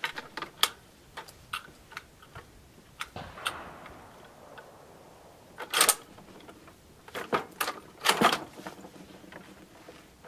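Metallic clicks and clacks of a Carcano M38 bolt action being worked as the rifle is loaded, with two louder clacks about six and eight seconds in. The magazine spring is weak on the follower arm, so the cartridges feed stiffly.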